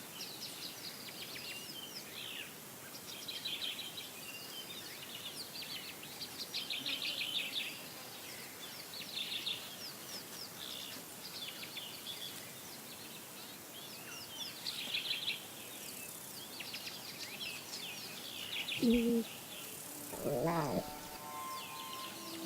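Wild birds chirping and trilling in short, repeated high phrases over a steady background hiss. Near the end come two brief, lower animal calls, the second rising and falling in pitch.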